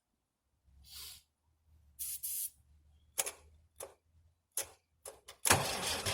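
Short hissing squirts of aerosol starting fluid, a few in a row, then about five and a half seconds in the Farmall 706 tractor's diesel engine catches and starts running loudly. The engine is running on the starting fluid: it will not run on its rebuilt Bosch VA6 injection pump alone.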